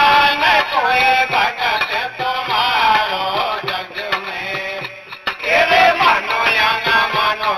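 Devotional kirtan: a male voice singing through microphones and loudspeakers, with instrumental accompaniment. The singing drops off briefly about five seconds in, then a new phrase starts with a sliding rise in pitch.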